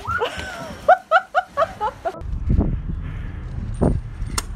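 A person's voice crying out, then a burst of quick, high-pitched laughter. About halfway through it cuts abruptly to a low rumbling noise with a few sharp clicks.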